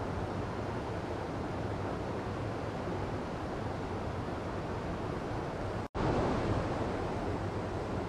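Mountain stream rushing over boulders in a small cascade, a steady rush of splashing water. It cuts out for an instant about six seconds in and comes back slightly louder.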